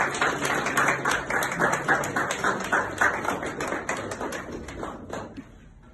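Small audience applauding with hand claps that thin out and die away about five seconds in.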